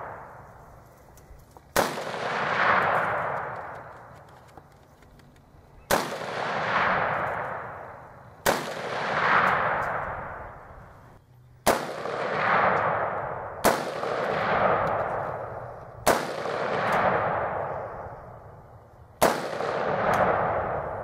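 Seven single rifle shots fired slowly, a few seconds apart, each followed by a long echo that swells and fades over about two seconds.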